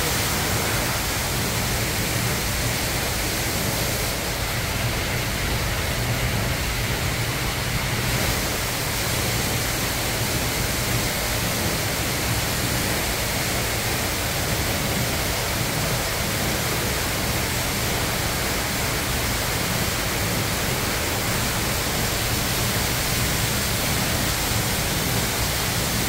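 Steady rushing noise with a faint low hum underneath, unchanging throughout.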